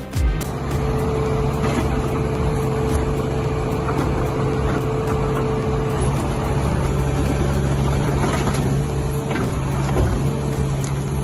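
A heavy machine's engine running steadily under load, a constant drone with light knocks through it.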